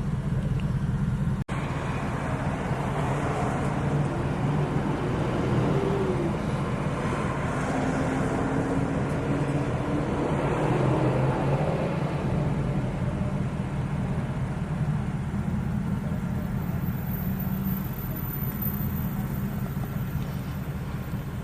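Ford Mustang GT's Coyote V8 running steadily while driving, with road noise. The idle tick, which the owner takes for the common Coyote tick, can't be heard while driving.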